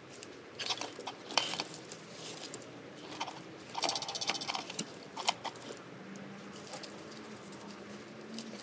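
Small clicks, snips and rustles of hand tools and thin wires being handled on a paper-covered workbench, busiest in the first five seconds. A faint low hum sets in about six seconds in.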